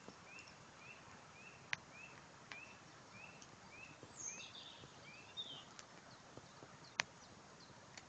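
A small songbird repeating a short rising call note about twice a second, with a second bird's brief chirps about halfway through. Two sharp clicks sound, one about two seconds in and one near the end.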